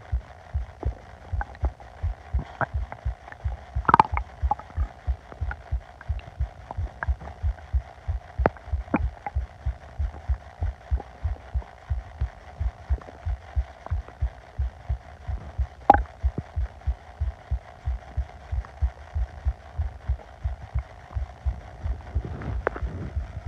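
Upset stomach recorded up close: a regular low thumping of the pulse, about two to three thumps a second, with scattered short gurgles and clicks from the gut. The sharpest clicks come about 4 and 16 seconds in.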